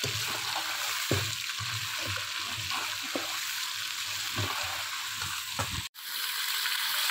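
Chicken, onions and garlic-ginger paste sizzling in hot ghee, with a slotted metal spoon scraping and knocking against the pan as it is stirred, a few separate strokes. The sound cuts out for an instant about six seconds in.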